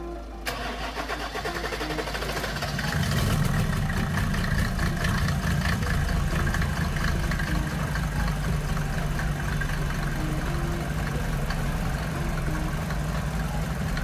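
Mercedes-Benz W124 300D's straight-six diesel engine cranking on the starter for about two seconds, then catching and running steadily. It is the usual hard start of an engine with low compression.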